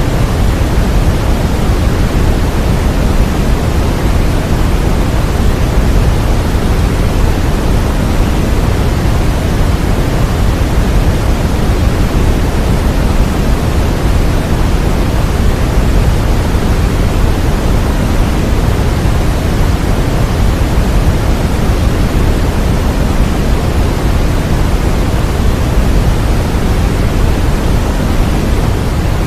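Continuous synthetic white noise for baby sleep, an even hiss weighted toward the low end. It stays steady without any change.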